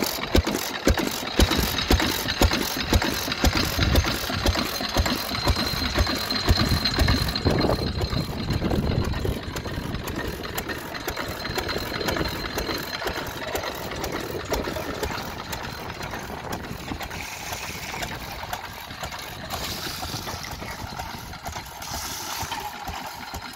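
Champion 6 hp stationary oil engine running a belt-driven water pump, with a steady beat of firing strokes that grows fainter after about nine seconds. Near the end, water from the pump splashes into a metal bucket.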